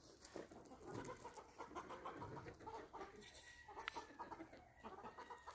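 Faint farm animal sounds: many short calls and noises close together, with a sharp click about four seconds in.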